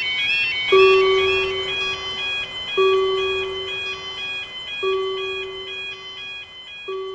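Electronic two-tone warning sound of a cartoon railroad crossing, stepping back and forth between two high pitches. A lower steady note sounds four times, about two seconds each, starting every two seconds.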